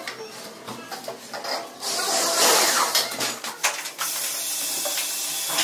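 Cordless screwdriver running in two spells, driving a screw into the metal edge channel of a PVC false ceiling, with short knocks and clicks before it.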